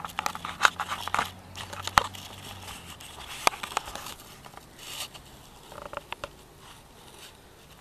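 Handling noise from a handheld camera being turned around: irregular clicks, knocks and rustles of fingers and hands on the camera body, thick at first and thinning out towards the end. A faint low hum sits under the first three seconds.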